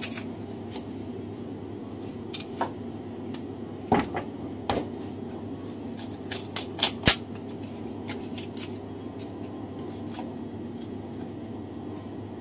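Boning knife clicking against bone and the plastic cutting board as a hind leg of meat is deboned: scattered sharp clicks, with a quick run of four about six to seven seconds in, over a steady hum.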